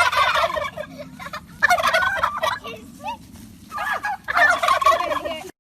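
Bird calls in three loud bursts of rapid, warbling rattle, with short chirps between them. The sound cuts off suddenly near the end.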